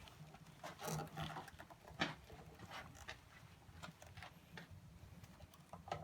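Faint, scattered clicks and knocks of hands working at the motorcycle's battery box, fitting the battery strap, with one sharper click about two seconds in.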